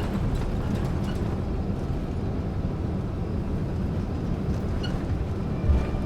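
Steady low rumble of an airliner cabin from the inside, with a single low thump near the end.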